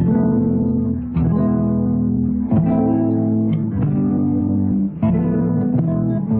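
Music with a guitar-like plucked-string sound: held chords or notes that change about every second.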